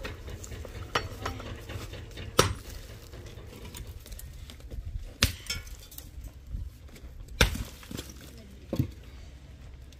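About five sharp knocks and clinks of hard objects, irregularly spaced, with a few fainter ones between, over a low steady rumble.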